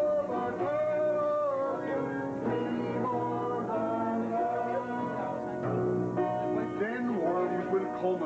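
Upright piano played from sheet music, with voices singing along in long held notes.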